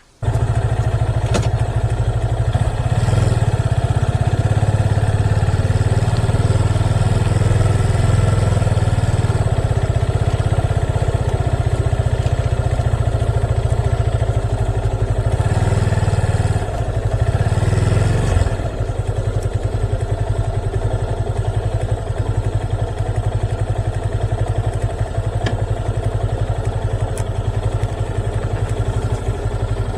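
Motorcycle engine running steadily and loudly, its note shifting for a few seconds around the middle.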